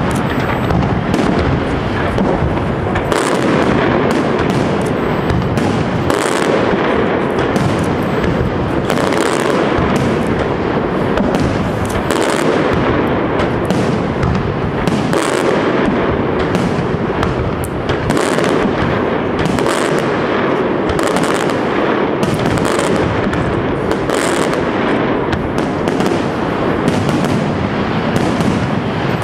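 Castillo fireworks display by Pirotecnia Europla: a continuous barrage of aerial shell bursts and crackling, the bangs following one another with no pause.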